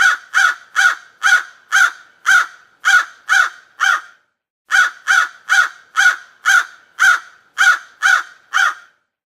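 Crow cawing in two runs of about nine harsh caws each, roughly two a second, with a short pause between the runs.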